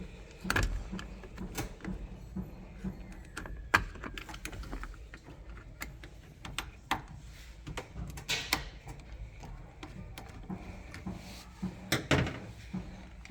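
Irregular knocks and clicks of hands and tools working on parts of a washing machine, with louder knocks about half a second in, near 4 seconds, around 8 seconds and near 12 seconds, over a low steady hum.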